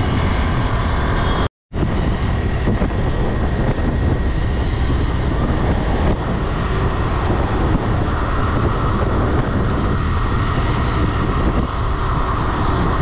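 Steady road and engine noise of a moving vehicle, broken by a brief silent gap about one and a half seconds in.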